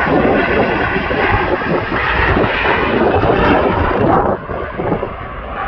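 Boeing 787's twin jet engines at takeoff thrust during the takeoff roll and liftoff: a loud, steady rumble that drops suddenly about four seconds in.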